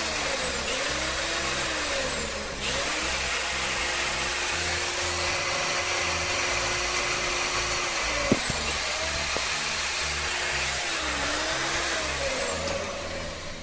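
LEPON CM5 5-inch marble cutter's electric motor test-running after an armature bearing replacement, its whine rising and falling several times as it speeds up and slows down, with a steady stretch in the middle and a sharp click about eight seconds in. It runs smoothly with no bearing noise, and it stops near the end.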